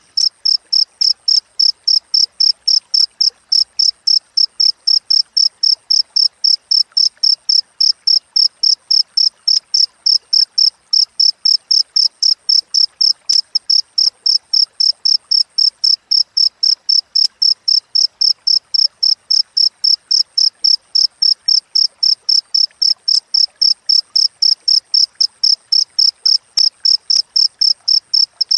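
A cricket chirping: a single high-pitched note repeated in evenly spaced chirps, several a second, without a break.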